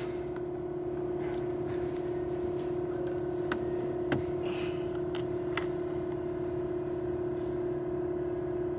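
A steady hum with a few faint plastic clicks as a mini blade fuse is worked loose and pulled from a car's fuse box with a plastic fuse puller.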